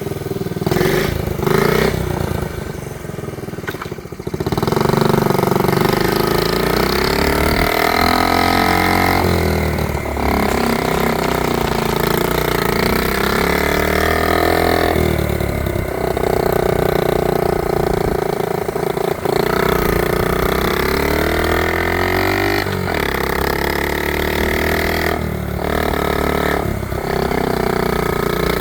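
1970 Honda Z50 minibike's small four-stroke single-cylinder engine running under way, its pitch rising and falling with the throttle and dropping briefly every few seconds as it eases off and picks up again.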